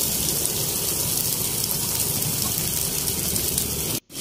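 Two freshly cracked eggs and chopped onion-tomato masala frying on a high flame in a blackened pan: a steady, loud sizzle. It breaks off abruptly for a split second near the end.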